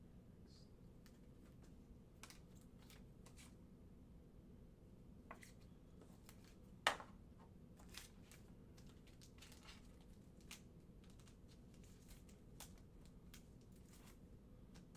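Faint, scattered clicks and light rustles from small objects being handled, with one sharper click about seven seconds in, over a low steady room hum.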